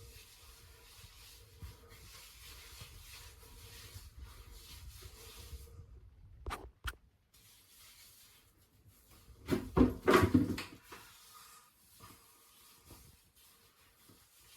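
A man belching loudly about ten seconds in, preceded by two sharp clicks, over a faint steady hiss.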